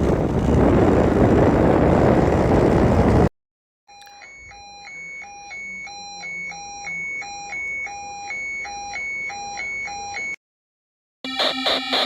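Fake Emergency Alert System alarm made of synthesized sounds: a burst of loud static for about three seconds cuts off to silence. Next comes an alternating low-and-high beeping, about two cycles a second, that grows louder for several seconds. After another short gap, a harsh, loud, many-toned pulsing alarm chord starts near the end.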